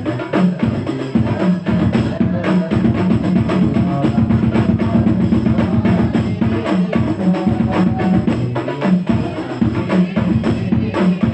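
Sholawat music in an instrumental passage: drums playing a steady, busy rhythm, with no singing.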